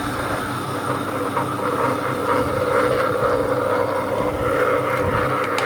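Small 2-litre table-top wet grinder running, its drum turning against the grinding stone as it grinds soaked rice and dals into coarse adai dosa batter, a steady rumbling churn. A sharp click near the end.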